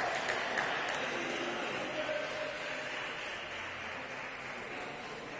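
Table tennis ball clicking sharply a few times, over a fading hum of hall noise and murmuring voices.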